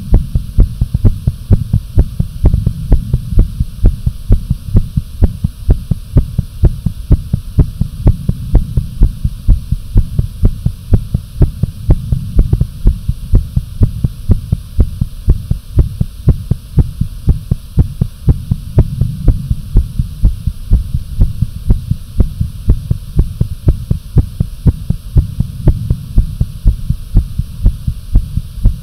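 A fast human heartbeat, its beats coming in an even, unbroken rhythm over a low hum.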